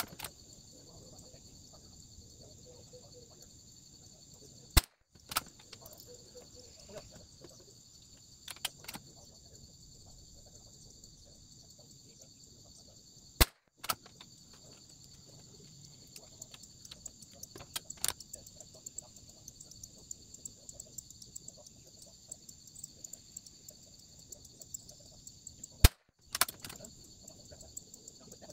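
Three sharp cracks of a Bergara BMR .22LR rimfire rifle firing, about five, thirteen and twenty-six seconds in, with softer handling clicks between the shots. Insects chirr steadily and high-pitched in the background.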